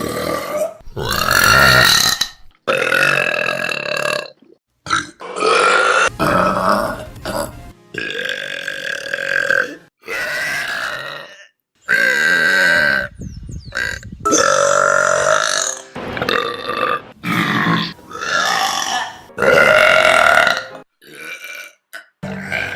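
A rapid run of loud burps from different people, cut one after another. More than a dozen burps, most long and drawn out with a clear pitch, each ending in an abrupt cut.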